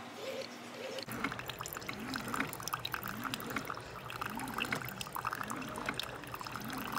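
Keurig 2.0 coffee maker brewing, with coffee pouring and trickling into a mug. The machine pulses in an even rhythm throughout, and the flow gets louder about a second in.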